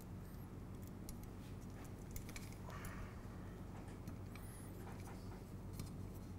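Faint clicks and small taps of metal robot parts being handled as M3 standoffs are fitted into an aluminium C-channel drive rail, over a steady low electrical hum.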